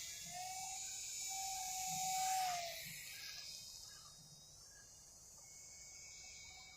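Electric motor and propeller of a small RC Cessna 182 park-flyer whining as the plane flies close by. It grows louder to about two and a half seconds in, dips slightly in pitch, then fades away. Crickets chirp in the background.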